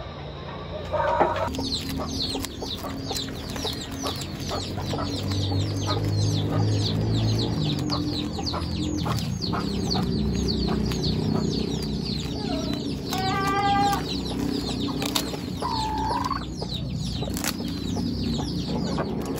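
Chickens: a constant, rapid run of short high peeping chirps, with a louder call about two-thirds of the way in and another a few seconds later.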